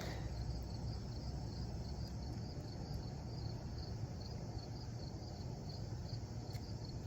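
Insects chirping in a steady, evenly pulsing high trill, over a low steady rumble.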